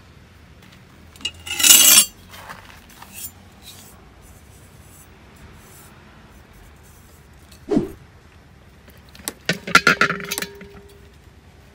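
Clatter and clinks of a metal cooking pot being handled on a stone tabletop: a long scraping clatter about two seconds in, a single knock near eight seconds, and a quick run of clinks around ten seconds that leaves the pot ringing briefly.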